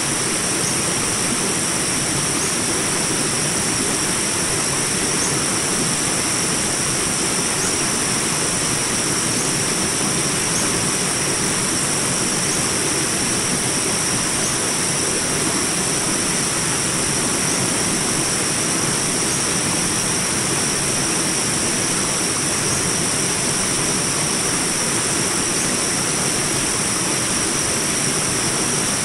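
Small jungle rapids: water rushing steadily, with a constant high-pitched whine on top and a faint short chirp repeating about every two seconds.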